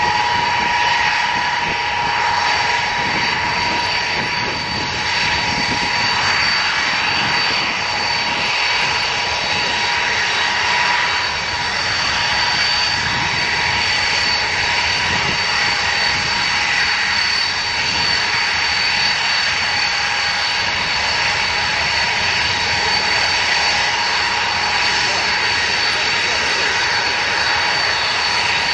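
Ilyushin Il-76's four turbofan engines running at taxi power as the jet taxis toward the listener: a steady rushing jet noise with a high whine on top.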